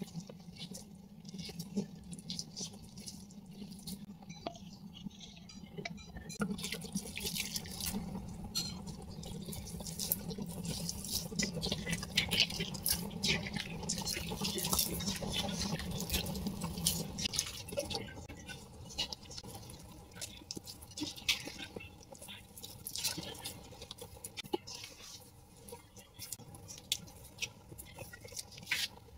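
A hand squishing and kneading wet rice-flour and sugar dough in a stainless steel pot as warm water is worked in: irregular wet squelches and pats, busiest in the middle. A low steady hum sits underneath and stops a little past halfway.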